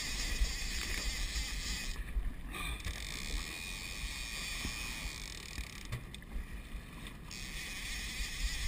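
Boat under way on open sea, running and washing through the water, with wind buffeting the microphone. A high hiss drops out twice for about a second.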